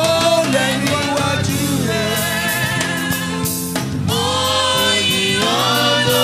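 Congregational gospel worship singing with band accompaniment, with long held notes.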